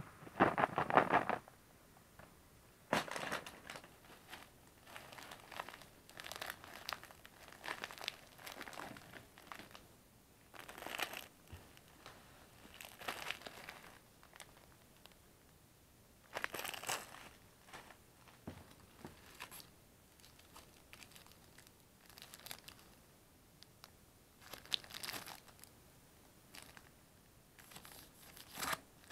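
Packages being handled and taken out of a cardboard shipping box: plastic wrapping crinkling and cardboard rustling in irregular bursts, the loudest right at the start.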